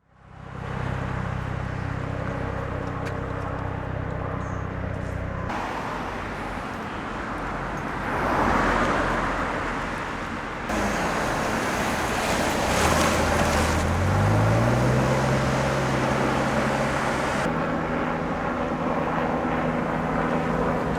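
Outdoor street ambience with vehicle engines running and traffic noise. The background changes abruptly three times, and a little past halfway an engine's pitch rises and then holds steady.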